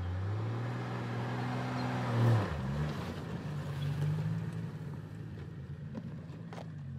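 Built off-road Jeep's engine revving up and holding high revs under load, then dropping back about two and a half seconds in and running on at lower, steadier revs.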